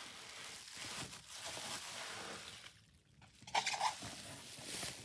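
Rustling and crinkling of toy packaging being handled, with a short louder burst about three and a half seconds in.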